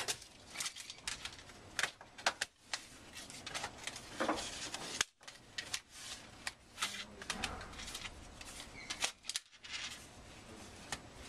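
Irregular clicks, taps and rustles of library items, books and plastic DVD cases, being picked up, handled and set down on a check-in counter.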